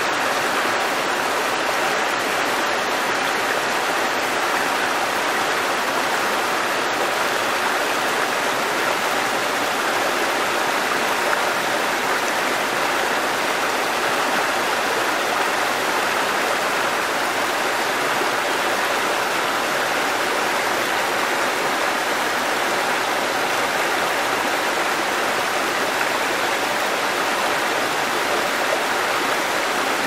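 Shallow rocky mountain stream rushing and splashing over small cascades between boulders: a steady, even sound of running water.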